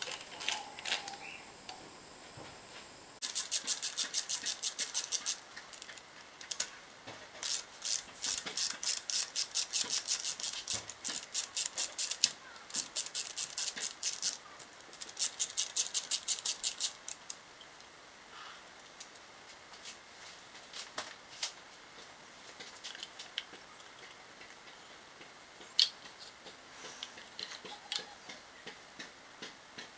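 Hand ratchet clicking in quick runs of many clicks a second while bolts in an engine's lifter valley are worked. After the middle it thins to scattered ticks, with one sharp click near the end.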